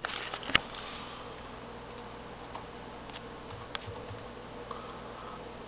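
Steady low hiss with a faint hum, broken by a few short clicks, the sharpest about half a second in.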